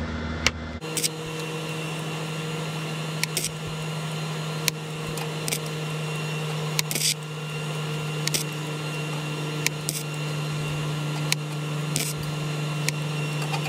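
Flux-core wire-feed welder laying short tack welds on thin sheet steel: a string of brief arc strikes, roughly one a second and unevenly spaced, over a steady hum. The short tacks are the welder's way of keeping the thin metal from burning through.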